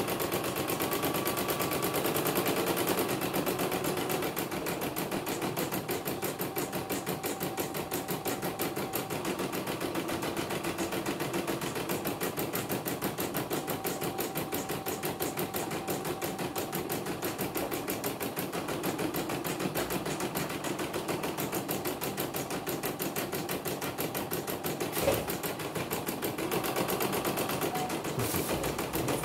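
CNY computerized embroidery machine stitching a design, its needle running in a fast, steady clatter of strokes while the hoop carriage moves the fabric. A single sharper click comes late on. The machine is on a test run after servicing for uneven stitching.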